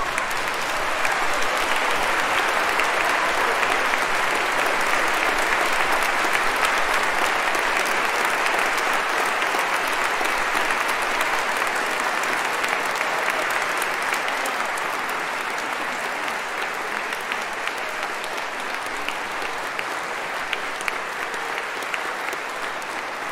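Audience applauding steadily, slowly dying down over the second half.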